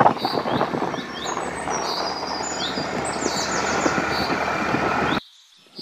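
Steady rush of a vehicle moving along a road, with wind and road noise on the microphone, and birds chirping repeatedly over it. The rush cuts off abruptly near the end, leaving only the fainter birdsong.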